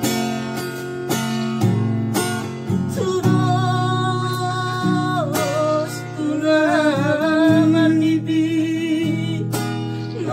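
Yamaha nylon-string classical guitar being strummed in a steady rhythm. A voice joins about three seconds in, singing a melody over it.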